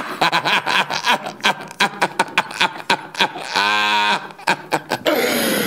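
Loud cackling laughter: a fast run of short 'ha's, about six a second, then a drawn-out laughing cry and a falling whoop near the end.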